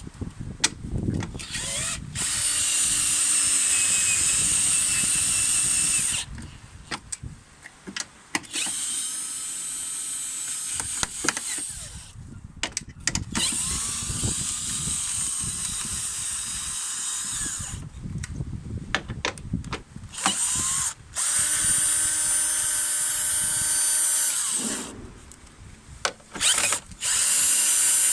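Power drill running in about five steady runs of a few seconds each, with short pauses of clicks and handling clatter between them.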